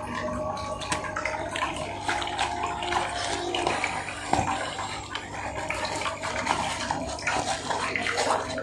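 Close-up wet chewing and lip-smacking of fried chicken, with irregular small clicks and crackles as the meat is pulled apart over a plastic-lined paper box.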